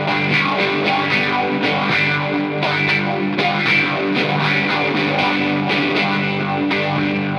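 Live instrumental rock: a Les Paul-style electric guitar played with distortion, picking a melodic lead line over the band.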